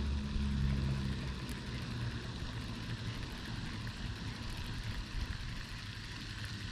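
A low engine hum fading away over the first second or so, leaving a steady low rumble and hiss, like wind on the microphone.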